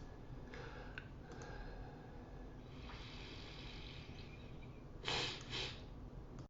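Quiet room background with a few faint clicks, then two short breathy puffs close to the microphone near the end.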